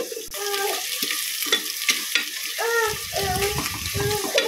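Sliced onions sizzling as they fry in sunflower oil and ghee, stirred in the pan, with a few light knocks of the utensil against it.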